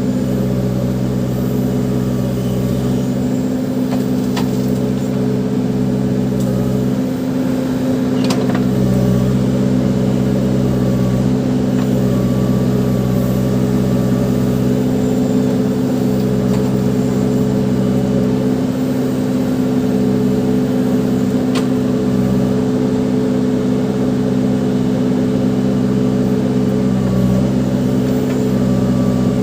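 Diesel engine of a Case 580 Super backhoe loader running at a steady speed, with a few faint clicks.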